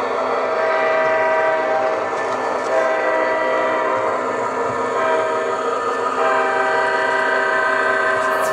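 Sampled diesel locomotive horn played through the onboard speaker of an MTH RailKing O scale SD45 model locomotive. It sounds three long blasts over the steady running noise of the model train on its track.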